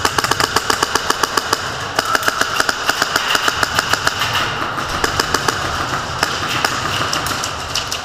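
Airsoft rifles firing full-auto, a rapid even stream of sharp cracks, about seven or eight shots a second, that thins out near the end.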